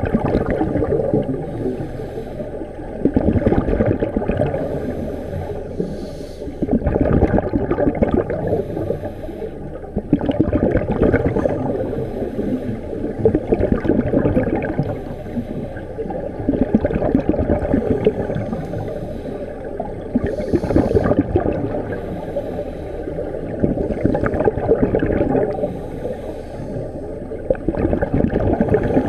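Scuba breathing heard underwater: a regulator's exhaust bubbles gurgling in swells that come back every three to four seconds, with quieter stretches between breaths.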